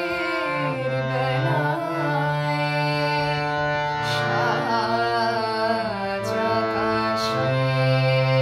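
A woman singing a Bengali song to her own harmonium. The harmonium holds long steady notes while her voice bends and glides between pitches above them.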